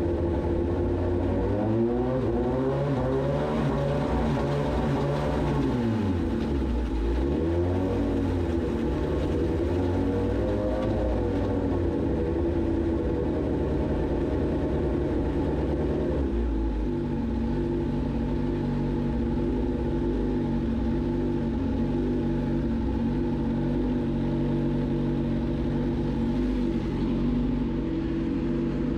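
Suzuki GSX-S1000's inline-four engine running. Its pitch rises about two seconds in, dips and climbs again around six to eight seconds, then steps down to a lower steady run about sixteen seconds in.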